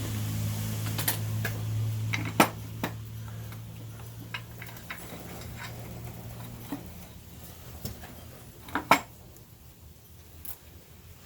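Hand tools clinking and clanking on metal engine parts while the front accessories are unbolted, with scattered single clanks, a sharp one early on and a double clank near the end. A low steady hum sits underneath and fades out a bit past halfway.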